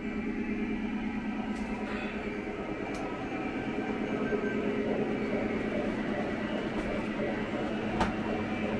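O gauge model trains running on the layout: a steady hum of the locomotives' electric motors and wheels rolling on the three-rail track, with a few sharp clicks, the loudest about eight seconds in.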